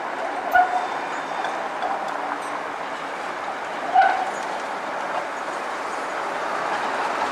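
Brussels STIB T2000-series low-floor tram rolling round a curve on street track, a steady running noise, with two short sharp sounds about half a second and four seconds in.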